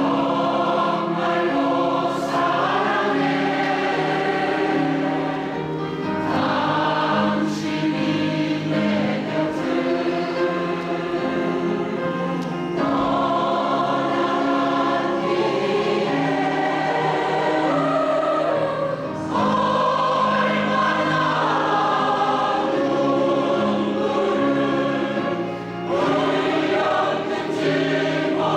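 Women's choir singing a Korean song in harmony, with piano accompaniment; the chords move every second or two, with a brief breath-like dip near the end.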